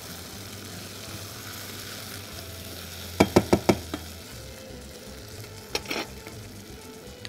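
Rice with tomato, raisins and crushed walnuts sizzling in a pot as it is stirred. About three seconds in come four quick clicks of the utensils against the pot, and two more knocks follow a couple of seconds later.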